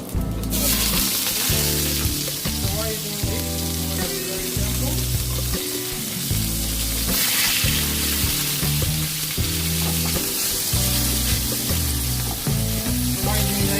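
Barramundi fillet frying in hot oil in a pan: a loud, steady sizzle that starts about half a second in and swells around seven seconds in.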